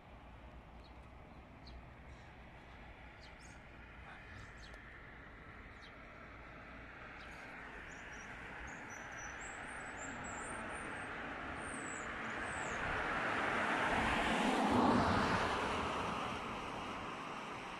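A vehicle passing on a road: its noise swells over several seconds, is loudest about three-quarters of the way through, then fades. Small birds chirp and twitter high above it in the first half.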